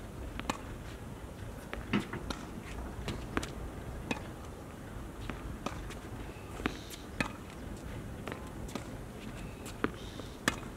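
Tennis ball being hit back and forth in a rally on a hard court: a string of sharp racket pops and ball bounces at irregular intervals, about one a second.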